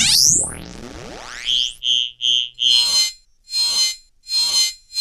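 Electronic radio transmission sound effects: a fast pitch sweep followed by slower rising glides, then four short high beeps about a second and a half in, then a regular train of buzzy static-like pulses, about three every two seconds.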